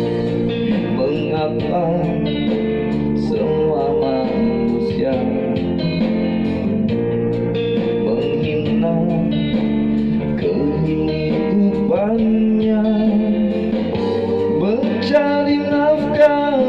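A man singing into a handheld microphone over backing music with guitar.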